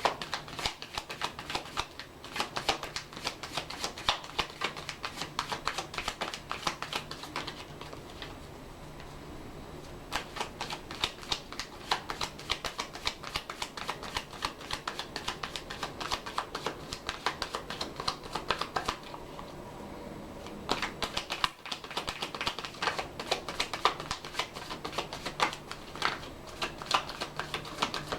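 Tarot cards being shuffled by hand: rapid runs of card clicks and flutters, pausing twice, about eight seconds in and again near twenty seconds.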